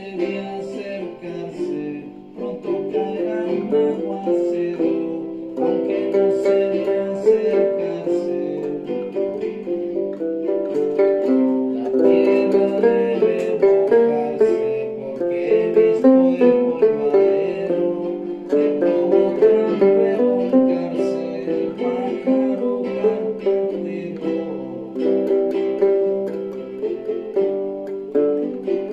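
Music played on plucked string instruments, a steady stream of quick picked notes.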